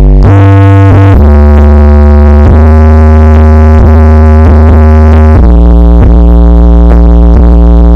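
Electronic dance music with a heavy synthesizer bass line blasted through a carnival 'horeg' sound system at full, overloaded level; the deep bass notes are held for seconds at a time and change about a second in and again after five seconds.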